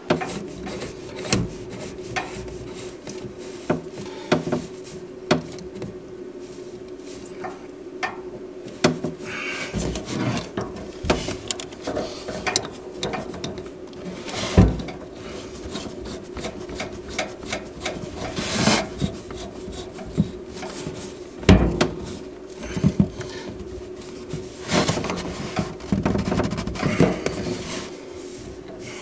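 Hands working inside a wooden under-sink cabinet: irregular knocks, clicks and scraping of wood, with a few sharper knocks, the loudest about halfway and two-thirds of the way through.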